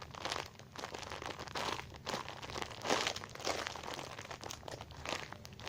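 Plastic crinkling and rustling in short, irregular bouts as squishy toys and their wrappers are handled.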